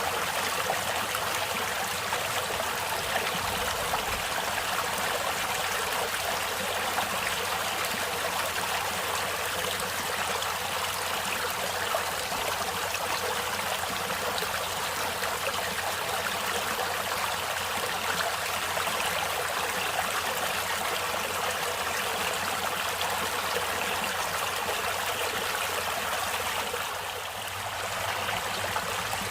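Stream water running steadily over rocks, an even rushing with small splashes and trickles. It dips briefly a little before the end.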